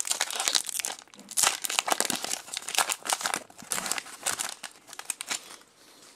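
Foil Pokémon booster pack wrapper being torn open and crinkled as the cards are pulled out: dense crackling crinkles that thin out near the end.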